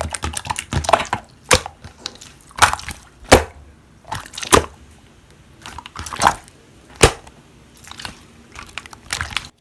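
Slime being squeezed and pressed by hand, giving short, sharp, irregular pops and clicks about one to two a second.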